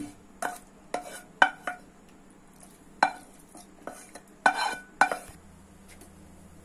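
Wooden spatula knocking and scraping against a nonstick kadai while the cooked onion-tomato mixture is pushed out into a steel bowl. About seven sharp clatters, some with a short metallic ring, ending about five seconds in.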